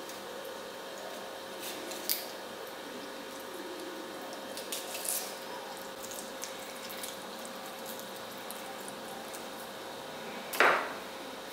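Pieces of marinated coot meat being pushed onto metal kebab skewers, with a few light metallic clicks, then a louder clink near the end as a loaded skewer is laid on the others. A steady hum runs underneath.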